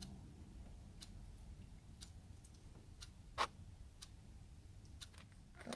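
Quiet handling sounds: faint, scattered clicks and rustles as a cut aloe vera leaf is rubbed into hair, over a low steady hum. One sharper click comes about three and a half seconds in.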